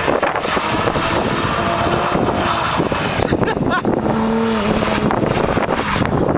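Stage 3-tuned Audi B5 S4 Avant's twin-turbo 2.7-litre V6 revving hard during donuts, its pitch rising about three seconds in and then holding. Heavy wind buffets the microphone throughout.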